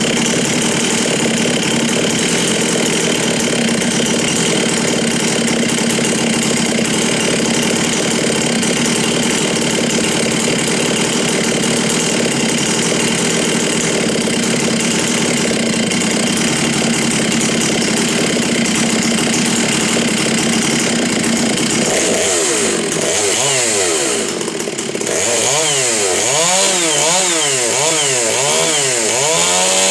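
A two-stroke chainsaw, the ported Stihl MS 660 Magnum, running loud at high speed with a steady note. From about 22 seconds in, its pitch swings up and down over and over as the throttle and load change.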